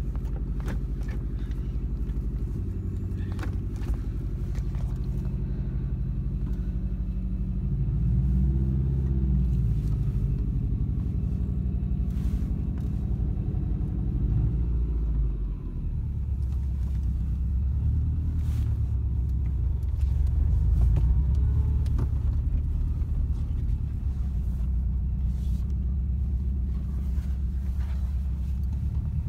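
Subaru Impreza wagon's flat-four boxer engine running, heard from inside the cabin as the car is driven a short way. The engine note rises about eight seconds in, dips briefly about fifteen seconds in, then settles into a steady low hum.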